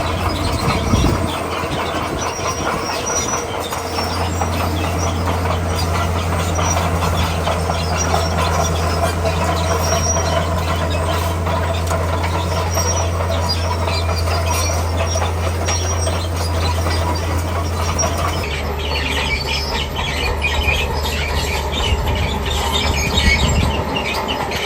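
Komatsu D41P crawler bulldozer at work: the diesel engine runs steadily while the steel tracks clank and squeal. About eighteen seconds in, the sound changes abruptly.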